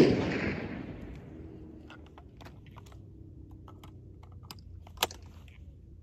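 A single loud bang at the very start, dying away over about a second and a half. Then small clicks and rattles of 12-gauge shells being handled and loaded into a Stoeger Condor over-under shotgun, and one sharp click about five seconds in as the break action snaps shut.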